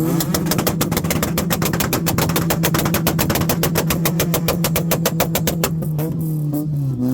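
A car engine held at steady high revs with a rapid, even string of exhaust pops, about ten a second, for roughly six seconds; the revs then drop away near the end.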